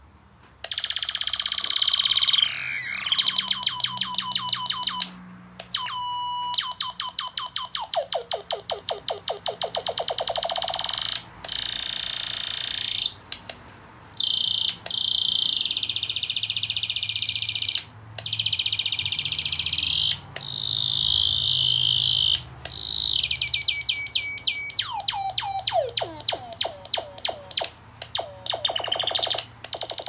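Homemade ray gun's electronic sound-effects circuit playing a run of sci-fi laser and ray-gun effects through its small speaker: whistles that sweep up and down in pitch, rapid zaps that fall or rise, and warbling tones, each a few seconds long with short gaps between. The effects start about a second in.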